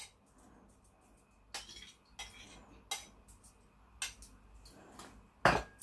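A spoon clinking and scraping against a small bowl as yoghurt is spooned out of it. There are about five separate clinks, the loudest near the end.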